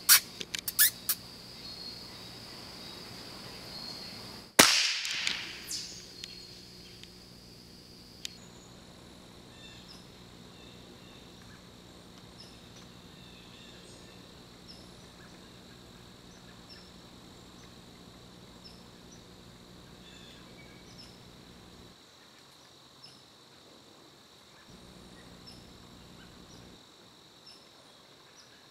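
A single shot from a scoped .22-calibre squirrel rifle about four and a half seconds in, a sharp crack with a short ring after it, over a steady high insect drone from the woods.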